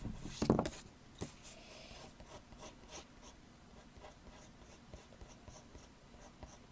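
Pencil scratching on drawing paper in quick short strokes, several each second, as lines are drawn over a sketch. A short thump about half a second in.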